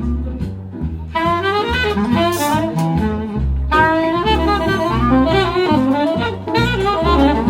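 Jazz music: a saxophone melody over a walking double bass line.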